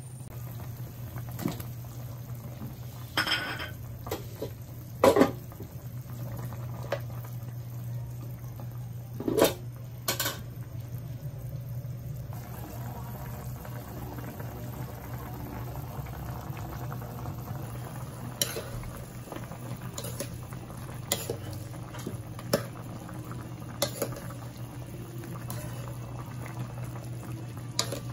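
Chicken and potato stew bubbling in a pan on the stove, with a steady low hum underneath and about ten sharp clinks of a utensil knocking against the pan as it is stirred.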